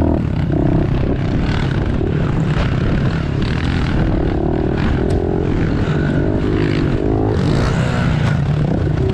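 Several small 110 cc dirt bikes riding a trail, their single-cylinder engines revving up and down again and again as the riders work the throttle over the bumps and jumps.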